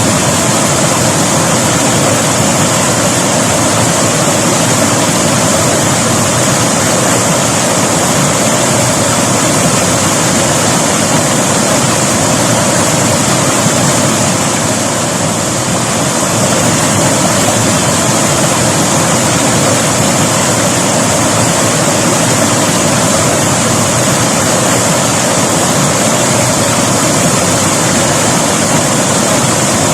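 River water rushing steadily, a loud, even sound of flowing water that eases slightly for a moment about halfway through.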